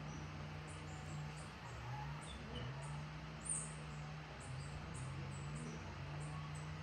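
Faint outdoor ambience: a high insect chirp repeating about twice a second, with one louder chirp about three and a half seconds in, over a low hum that wavers slightly in pitch.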